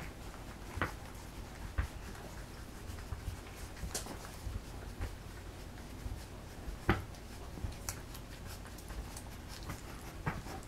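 Three-week-old doodle puppies feeding, with soft dog sounds and scattered sharp little clicks.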